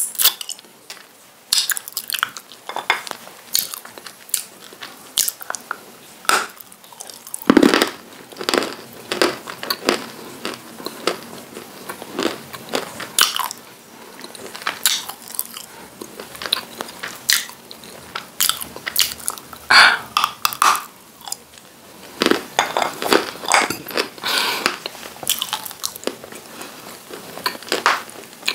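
Close-up biting and chewing of hard white chunks: irregular crisp crunches and cracks, with a loud bite about seven seconds in and another about twenty seconds in.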